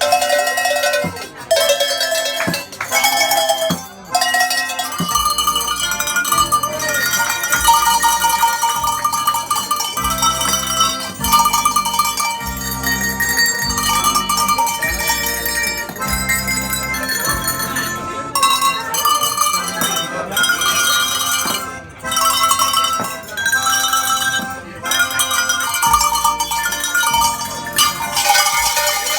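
Tuned Tyrolean cowbells rung by hand to play a tune, the bells' ringing notes overlapping. About five seconds in, a low bass accompaniment of held notes joins underneath.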